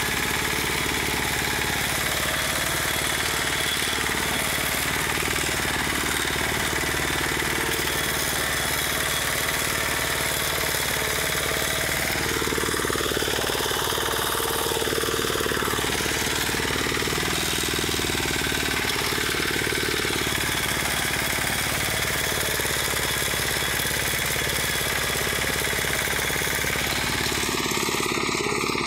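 Reaper binder's small engine running steadily.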